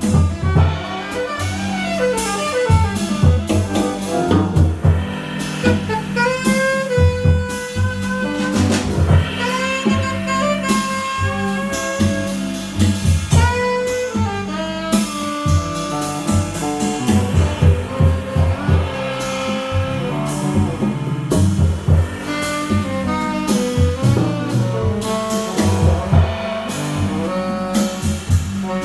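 Live small-group jazz: a saxophone playing melodic lines over archtop guitar, upright double bass and drum kit with cymbals, continuous and full throughout.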